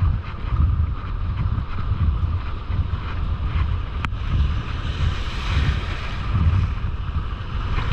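Wind buffeting the microphone with a steady low rumble, over the wash of breaking surf that swells up about five seconds in. A single sharp click sounds about four seconds in.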